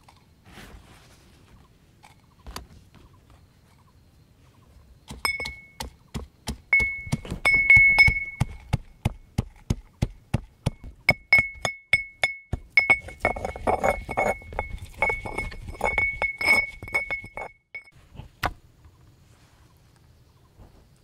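Metal pestle pounding garlic and dried red chillies in a mortar, about three strokes a second, each strike a ringing clink. The pounding starts about five seconds in and stops a few seconds before the end.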